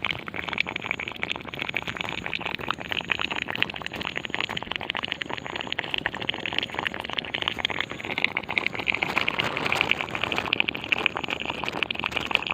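A steady, dense crackling of very rapid clicks from inside a crop field, strongest in a high band, with faint short high chirps repeating over it; it has been going on for hours.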